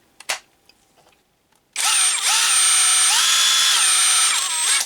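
A click, then the motor of an Ingco 20V brushless cordless impact wrench spinning freely with no load, starting about two seconds in. Its whine steps up in pitch partway through and drops back as the variable-speed trigger is squeezed and eased, then stops just before the end.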